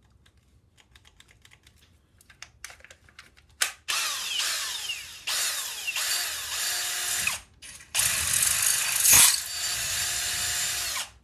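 Cordless drill boring a 4.5 mm hole through a small metal part, in two loud runs with a short pause between them. Before the drilling, a series of light clicks and one sharp click.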